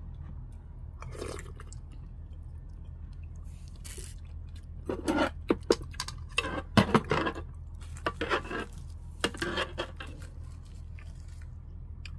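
Close-up eating sounds: a bite of rice wrapped in dried laver being chewed, with irregular wet, crunchy mouth noises and a few light clicks of tableware, loudest in a cluster from about five to ten seconds in. A steady low hum runs underneath.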